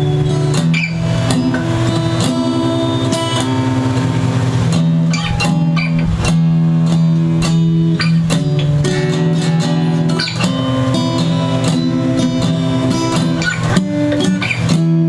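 Martin high-pressure-laminate acoustic-electric guitar played: chords strummed and left to ring, changing every second or so.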